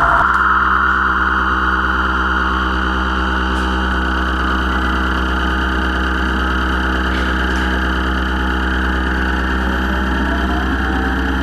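Live electronic drone music from a laptop and mixer through a loudspeaker: a sustained, many-layered drone over a deep low hum, with a brighter band of tones above that slowly shifts, and new tones coming in near the end.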